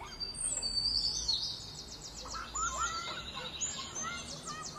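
Several small birds chirping and singing, with quick rising and falling notes and two fast trills, one mid-way and one near the end.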